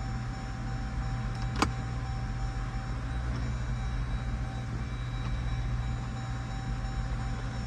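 Steady low hum of the Jeep Grand Cherokee's 5.7 L Hemi V8 idling, heard from inside the cabin, with one sharp click about one and a half seconds in as a climate-control button is pressed.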